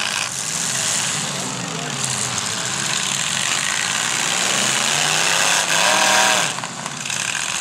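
Demolition derby cars' engines running and revving, their pitch rising and falling, over a steady din with voices mixed in.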